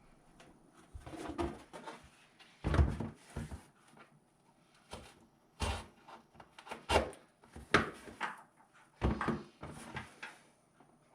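A series of irregular knocks and clunks, like things being handled and set down during work, with the loudest about three, six, seven, eight and nine seconds in.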